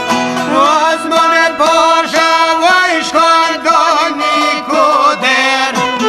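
Traditional Albanian folk music: plucked-string accompaniment under a wavering, ornamented melody line with vibrato.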